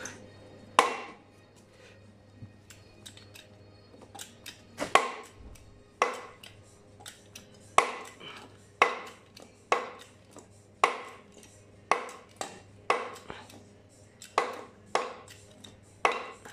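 Sharp metal-on-metal knocks, roughly one a second, each ringing out briefly, with lighter clicks between, while a steel bushing is being pressed into its seat.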